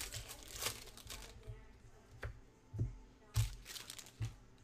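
About five soft knocks with light rustling, the loudest about three and a half seconds in, as trading cards and foil pack wrappers are handled and set down on a table.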